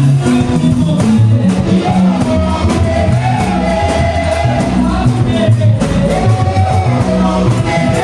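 Praise music: singing over a live band, with a bass line stepping from note to note under a steady beat.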